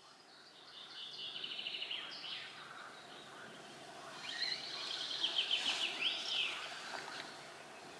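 A songbird singing two high, trilled phrases of rapidly repeated notes, a short one near the start and a longer one around the middle, over faint background hiss.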